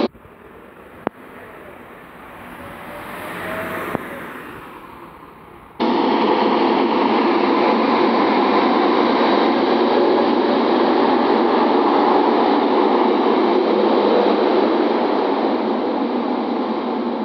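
Scania K230UB city bus pulling away, its engine and road noise swelling for the first few seconds and then fading as it leaves. About six seconds in, a loud, steady rushing noise cuts in suddenly and drowns everything out.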